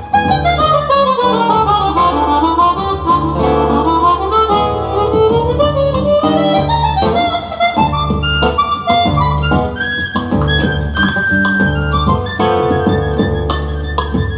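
Harmonica playing a fast melodic solo in quick falling and rising runs over acoustic guitar accompaniment.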